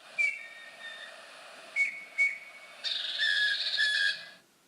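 Eurasian bullfinch calls: short, soft whistled notes, then a denser run of notes near the end, over a light hiss of recording noise.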